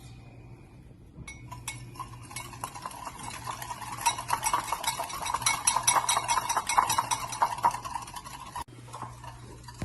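Egg yolks and sugar being beaten by hand in a bowl, the utensil clicking rapidly and steadily against the bowl. It starts about a second in and stops suddenly near the end.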